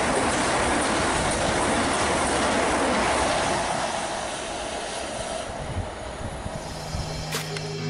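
Southern electric multiple unit passing at speed: the rush of wheels on rail fades away as the train recedes. Music fades in near the end.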